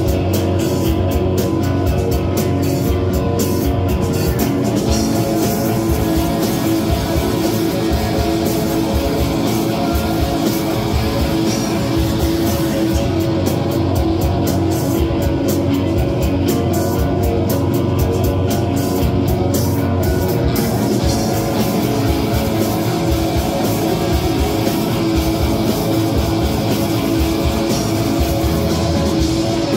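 A rock band playing live: electric guitar, bass guitar and a drum kit with cymbals.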